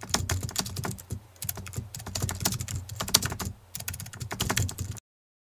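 Computer keyboard typing sound effect: quick, irregular key clicks that stop abruptly near the end.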